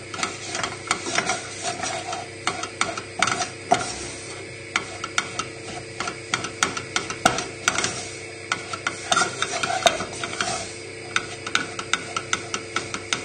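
Wooden spoon stirring a thick, crumbly roux of butter and flour in a saucepan, scraping and knocking against the pan in quick, irregular strokes as the flour cooks out.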